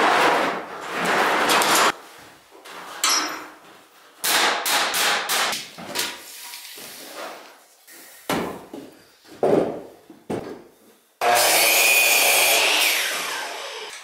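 Wall framing with rough-sawn 2x3 studs: boards sliding and knocking against each other and the bench, with a quick run of sharp knocks about four seconds in and single knocks after. Near the end a power saw runs loud for a couple of seconds and then winds down.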